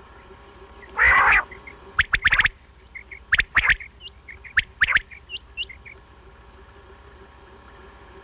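Recorded common quail (batair) calling: a loud harsh note about a second in, then quick groups of two or three sharp notes with softer short chirps between, falling quiet for the last few seconds.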